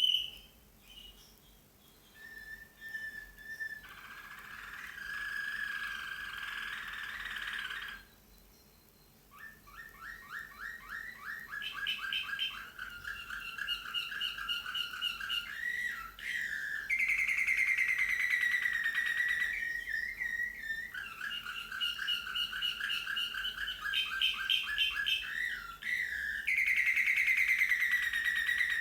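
Slavujar song canary singing a long, varied song of held whistled notes and fast rolling trills, with a short pause about eight seconds in.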